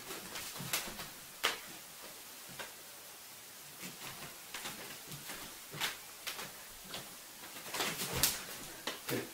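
Scattered soft knocks and slaps of forearms and hands meeting in a two-person martial arts blocking and punching drill, over a steady hiss. The sharpest knock comes about a second and a half in, and several more come close together near the end.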